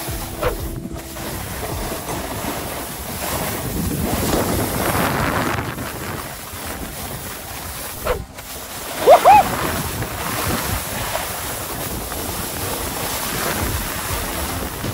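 A snowboard scraping and carving over packed snow on a downhill run, with wind buffeting the microphone in surges. About nine seconds in, a short, loud squeal-like sound rises in pitch.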